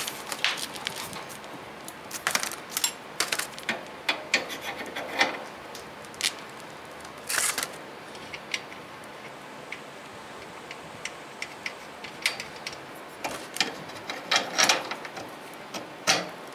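Irregular metallic clicks, knocks and brief scrapes of a foot bracket, bolts and nuts being handled and fitted against a portable generator's metal frame.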